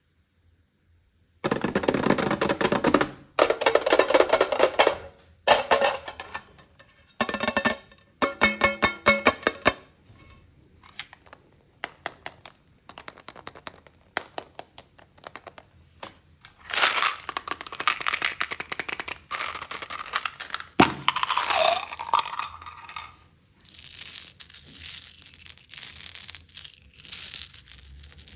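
Close-up crunching and crackling of candy, in dense bursts a second or two long with scattered single crackles in between.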